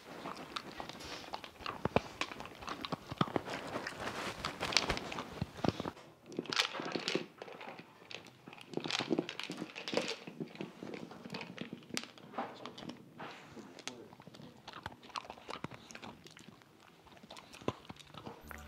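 A dog crunching dry kibble shaken out of a plastic tumbler treat-dispensing toy, with many irregular crunches and clicks as it nudges the toy and the kibble rattles inside.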